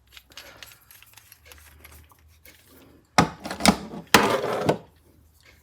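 Metal push drills being handled, with faint rubbing and then two loud bursts of metal clatter and rattling about three and four seconds in.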